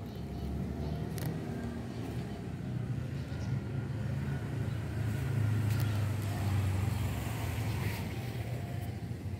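A motor vehicle's engine rumbling past, swelling to its loudest about midway through and then easing off.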